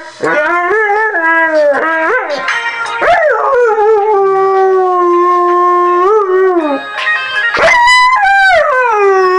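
Siberian Husky howling: short wavering howls at first, then a long howl about three seconds in that slides down and holds, and another near the end that rises and then falls.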